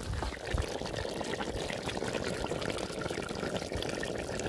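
Beef and tomatoes in a steel pot bubbling and sizzling in the juices the beef has released: a steady crackling hiss with many small pops.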